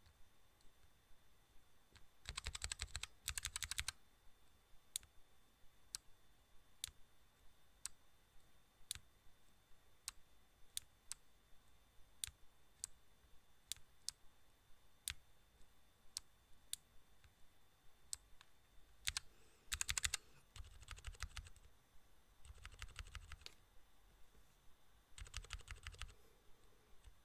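Faint clicking: single clicks about once a second, with several short bursts of rapid clicks each lasting a second or so, over a faint steady high tone.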